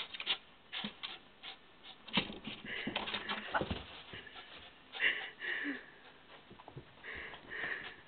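Small terrier-mix dog whining in eager excitement, several high half-second whines mixed with scattered knocks and scrabbling as she moves about.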